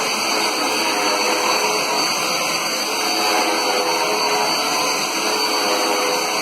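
Dirt Devil Endura Reach bagless upright vacuum cleaner running steadily: a loud rush of air with a steady motor whine.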